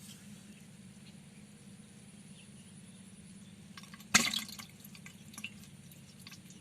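A sharp splash in the water about four seconds in, with a few smaller drips and splashes around it, over a steady low hum.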